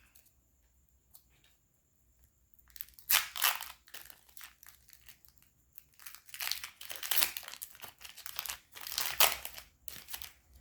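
Trading-card pack wrappers crinkling as the packs are handled and torn open, in bursts: one about three seconds in, then more through the second half.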